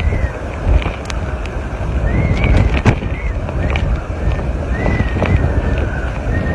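Strong wind buffeting the microphone, a heavy rumble with scattered knocks. A thin high whistle comes and goes every couple of seconds, rising and falling slightly.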